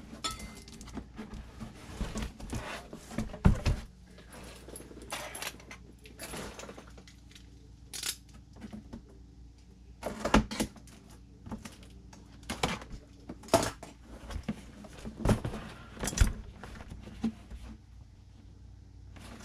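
Cardboard and plastic packaging of a boxed RC car being handled and opened: irregular rustling, clicks and knocks, some sharp and loud, with quiet gaps between them.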